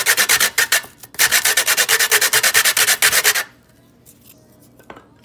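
A dried wooden stick being rubbed quickly up and down a stainless-steel box grater, grating it into powder: fast, even scraping strokes in two runs with a short break about a second in. The grating stops a little after three seconds, leaving only a few faint taps.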